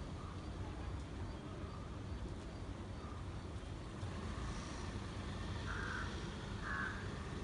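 Outdoor background: a steady low rumble with a few short bird chirps, the two loudest near the end.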